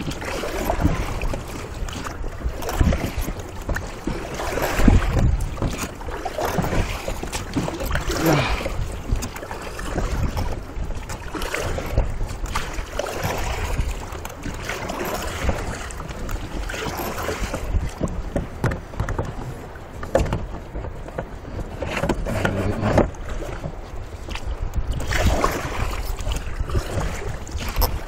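Oars rowing an Intex Seahawk II inflatable boat, the water splashing and sloshing with each stroke, about one stroke every two seconds.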